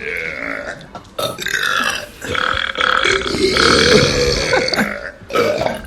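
Loud, long human burps, several in quick succession with short gaps between them.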